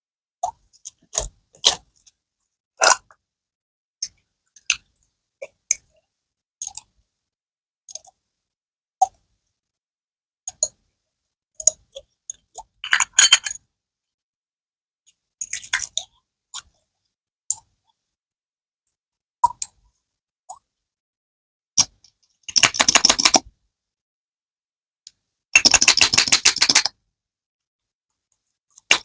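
Slime being squished and poked by hand, making scattered sharp clicks and pops, broken by several short crackling bursts about a second long, the longest near the end.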